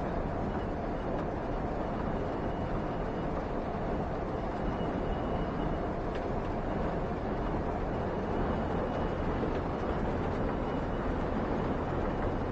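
Steady road noise inside the cab of a Tiffin Allegro Bus diesel-pusher motorhome cruising at highway speed.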